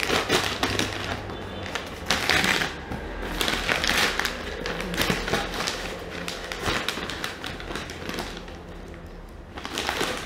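Large cardboard shipping box being handled and pulled at: irregular crackling, scraping and knocking of cardboard.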